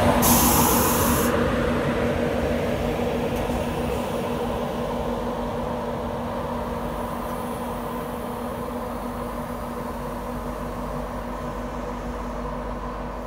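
InterCity 225 train of Mark 4 coaches, hauled by an electric Class 91, rolling along the platform with a low rumble and a steady hum that fade steadily as it slows. A brief hiss comes at the start.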